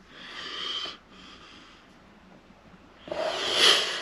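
A person blowing out air twice, each a breathy rush about a second long: one at the start and a louder one near the end.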